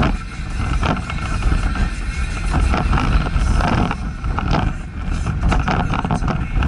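VW T5 van driving on a town road, heard from inside the cabin: a steady low rumble of engine and tyres with a few short knocks and rattles.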